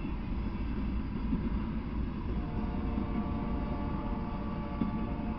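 Freight train rolling past, a steady low rumble of its cars' wheels on the rails.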